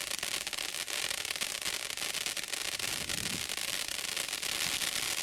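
TNT American Pride firework fountain burning: a steady spraying hiss of sparks with fine crackling.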